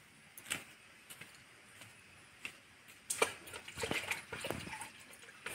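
A domestic cat grooming itself, licking its fur with faint wet tongue smacks: a few scattered clicks at first, then a quicker run of them from about three seconds in.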